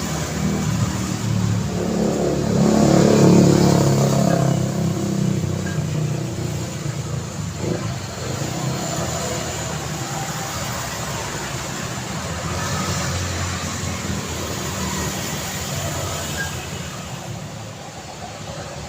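Road traffic going by. One vehicle's engine passes close and is loudest two to four seconds in, then the traffic settles to a steady hum.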